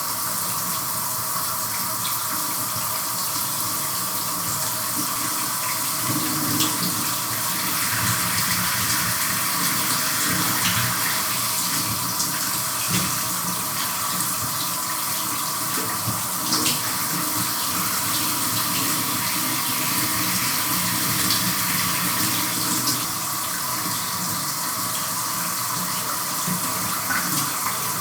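Shower running steadily, water spraying and splattering, with small splashes and swells in level now and then as someone moves under the stream.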